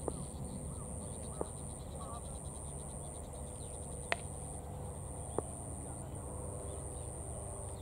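Outdoor ambience: a steady, high-pitched insect drone with brief dips every second or two, over a low rumble. A few sharp clicks sound about 1.5, 4 and 5.5 seconds in, with faint distant voices.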